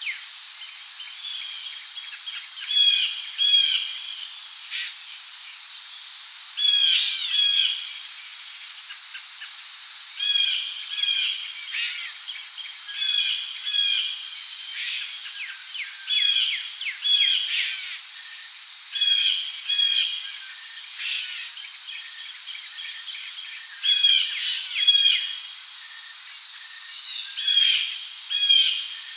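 Rainforest ambience: a steady high-pitched drone of insects, with a bird repeating a short call, mostly in quick pairs, every couple of seconds.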